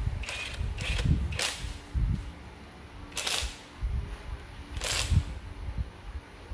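About five sharp metallic clicks and knocks with low thuds between them, the loudest about three and five seconds in, as a cordless driver and its bit are worked on the bolts of an engine's timing chain guide.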